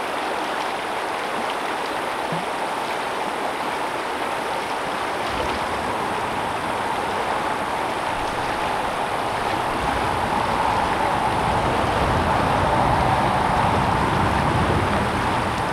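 Shallow, fast river water rushing over rocks in a riffle: a steady, even rush.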